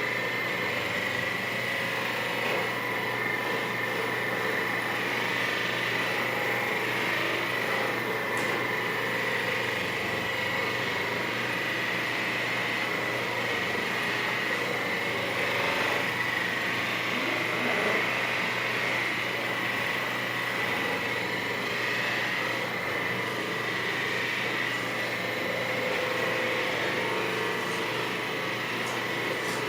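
Percussive massage gun running steadily on the back muscles, its motor giving an even, continuous high whine.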